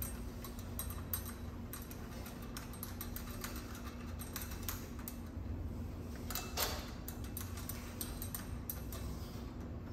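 Irregular light clicks and taps of small hardware and tools being handled, with one louder scraping click about six and a half seconds in, over a low steady hum.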